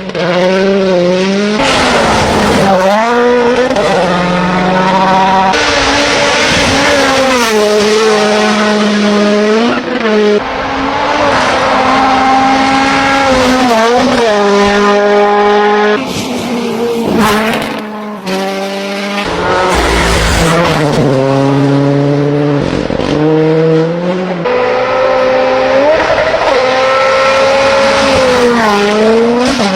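Rally car engines at full throttle, the pitch climbing through each gear and dropping back at every shift or lift, across a run of short cuts from one car to the next.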